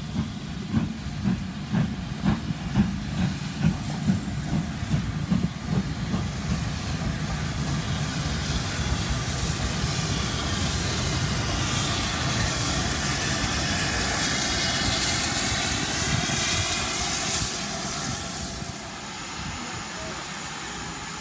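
GWR King class 4-6-0 steam locomotive No. 6023 moving off slowly. At first come evenly spaced exhaust beats, a little over one a second. Then a loud hiss of steam from the open cylinder drain cocks builds as it passes and drops away near the end.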